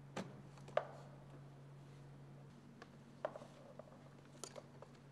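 A handful of sharp clicks and light taps of plastic engine-bay parts being handled by gloved hands, the two loudest within the first second, over a steady low hum.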